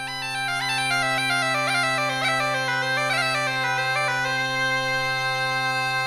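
Bagpipe music: a steady drone under a chanter melody of quick running notes, fading in over the first second.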